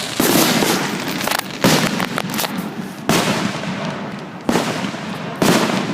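Fireworks bursting overhead: about five sharp booms, roughly a second apart, each trailing off, over a steady rushing noise.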